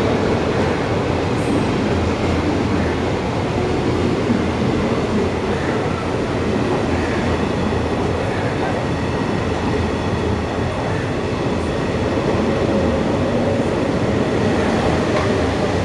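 Indian Railways passenger coaches rolling past a station platform: a steady, even rumble of wheels on rail.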